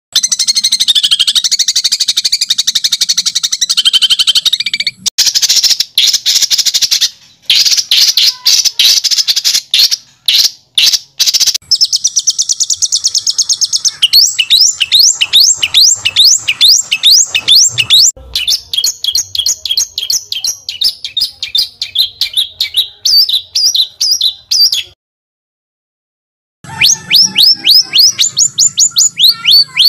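Songbird song for tutoring competition birds: harsh, high-pitched chirps and trills, with quick runs of repeated rising notes in the middle. The song breaks off abruptly a few times and falls silent for over a second near the end before starting again.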